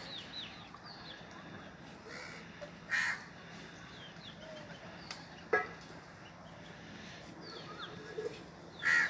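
Crows cawing: three short, harsh caws a few seconds apart, about three seconds in, halfway through and at the very end, over faint high chirping of small birds.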